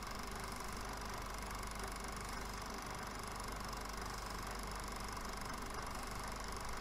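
Film projector running: a steady mechanical whir with a constant low hum underneath.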